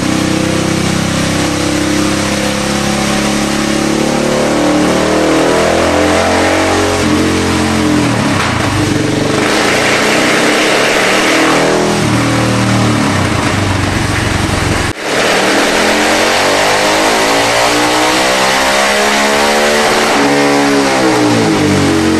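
Husqvarna 701 Supermoto's single-cylinder engine running flat out on a dyno, breathing through a Tekmo header and an unbaffled Wings silencer. The revs climb steadily over several seconds in long pulls, with a brief break about fifteen seconds in before another rising pull.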